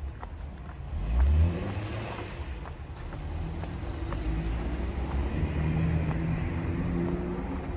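Car engine running and accelerating, with a loud low rumble about a second in and the engine note rising and growing louder later on. Faint footsteps tick about twice a second.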